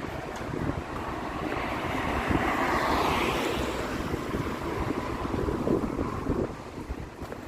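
Wind buffeting the microphone over the rush of waves on the shore. The rush swells to a peak about three seconds in, then fades.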